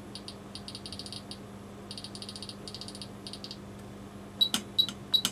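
Rotary encoder on an Agilent E3649A power supply's front panel clicking in quick runs as it is turned to change the current setting. Near the end come short high beeps, about four a second, each with a click. A steady low transformer hum runs underneath.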